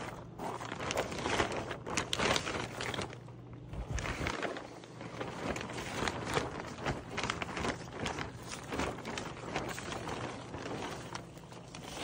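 Plastic shrink wrap being pulled off a plywood shipping crate and crumpled, with irregular crinkling and rustling.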